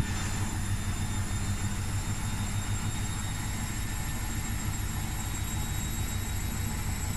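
Arctic front-loading washing machine on its final spin with a heavy wet blanket in the drum, still climbing toward its 1000 rpm top speed: a steady low rumble with a thin high whine.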